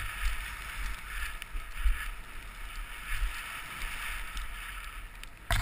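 Snow hissing under a rider sliding down a soft, snowy ski slope, swelling and fading with each turn, with a low wind rumble on a helmet-mounted action camera.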